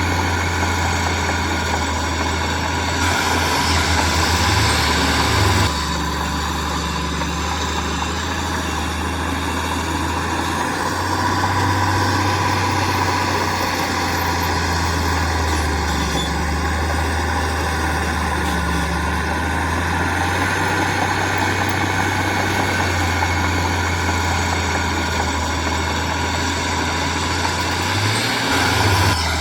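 Heavy construction machinery's diesel engine running steadily, with the engine note rising briefly a few seconds in and again near the end.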